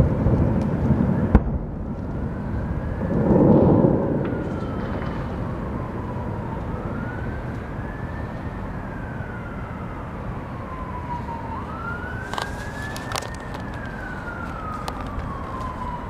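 Distant fireworks booms in the first few seconds, then an emergency vehicle siren wailing in about three slow rising and falling sweeps, with a few sharp pops near the end.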